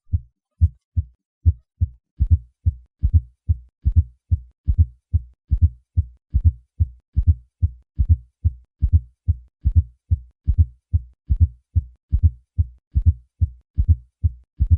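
Heart sounds with a fourth heart sound (S4 gallop): low-pitched thuds repeating in a steady, quick rhythm, a soft atrial sound falling just before each lub-dub. An S4 is the sign of a stiff, poorly compliant left ventricle, as with hypertension.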